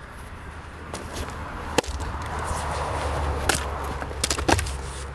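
Sharp knocks of a Fiskars splitting axe and split firewood against a stump chopping block: one loud crack a little under two seconds in, then a few lighter knocks near the end, over a low rumble.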